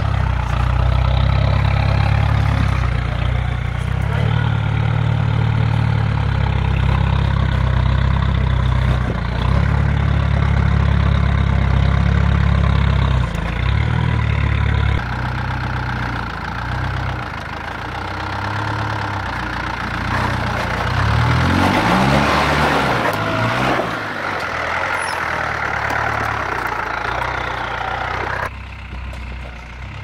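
Land Rover 110's V8 engine working at low speed as the vehicle crawls over rocks, the revs climbing and dropping several times about two-thirds of the way through.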